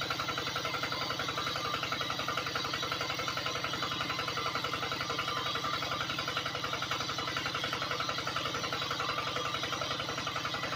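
Small motor of a DIY mini water pump running steadily with a rapid, even pulsing as it draws water through the suction hose.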